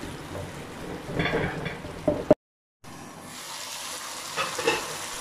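Tomato-and-onion masala sizzling in oil in a pot while it is cooked down to dry off its water, with a wooden spoon scraping and stirring through it now and then. The sound drops out for half a second near the middle.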